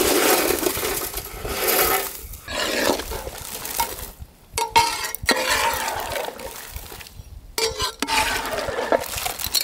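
Dry instant noodle cakes (Maggi) being broken and dropped into a large cooking pot of vegetables, crackling and clinking in several bursts with short pauses between.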